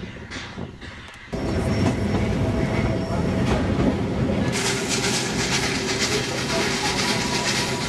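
Narrow-gauge train in motion. Faint clicking for about a second, then a sudden change to loud clattering ride noise, heard from inside an open carriage: wheels rattling over the rail joints with a steady rumble. The noise turns harsher and hissier about four and a half seconds in.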